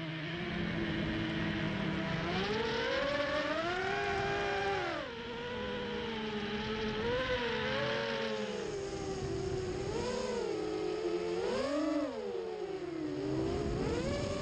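FPV racing quadcopter's brushless motors and propellers whining, the pitch swinging up and down again and again with the throttle, dipping sharply about five seconds in.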